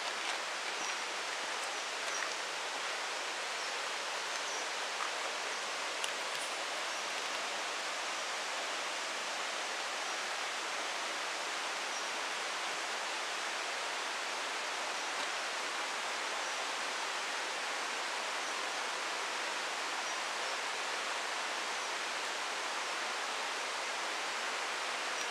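Steady rushing outdoor noise in a forest, even throughout, with faint short high chirps every second or two.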